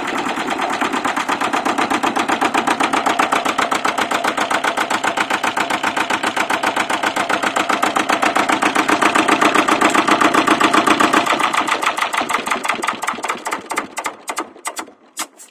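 Lister ST2 18 hp twin-cylinder air-cooled diesel engine running steadily, then shut off about twelve seconds in: its firing beats slow, spread apart and fade, and it stops near the end.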